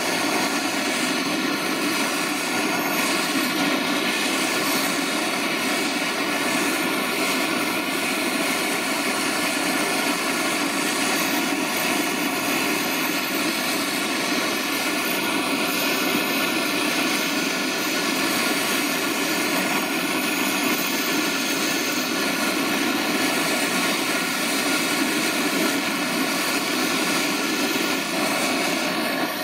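Gas blowtorch flame burning with a steady, even rushing roar while it heats aluminium for Lumiweld brazing, bringing the joint up to the temperature at which the filler rod melts on the aluminium.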